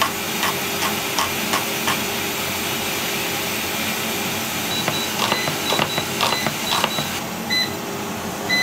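Chef's knife chopping shallots on a wooden cutting board: a run of short knife taps, about two to three a second and closer together in the middle, over a steady background hum.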